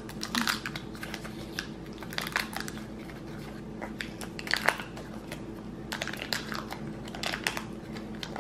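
Foil cupcake liners crinkling as they are peeled off homemade chocolate peanut butter cups, in several short bursts of crackling, the liners sticking to the chocolate.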